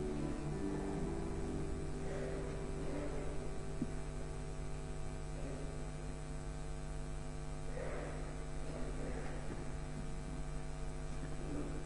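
Steady electrical mains hum. The last notes of the acoustic guitar die away in the first second, and a few faint, brief noises come through the hum.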